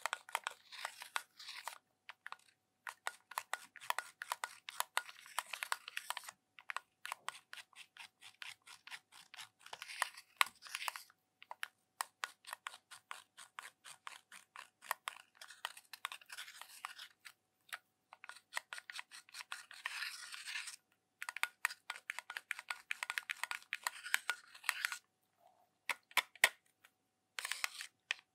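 Pressed eyeshadow being scraped and crumbled out of a makeup palette's pans with a pointed tool: rapid dry scratching and crackling in spells, with a few short pauses.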